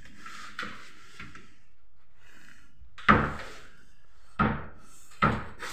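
Laminated cupboard door being opened and shut: three loud bangs about a second apart, the last followed by a quick run of fainter knocks as it rattles.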